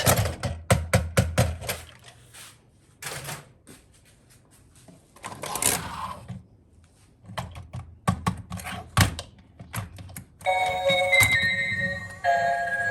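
Hard plastic toy parts clicking and knocking as they are handled, with two short rustling scrapes in between. About ten and a half seconds in, a tinkling electronic tune starts.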